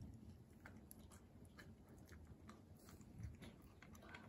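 Kooikerhondje puppy gnawing a chew treat held between its paws: faint, irregular clicks and crunches of teeth on the treat.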